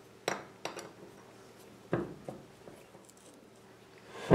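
A few sharp metal clicks and taps from handling a steel lathe chuck and its back plate screws with an Allen key, then a louder knock near the end.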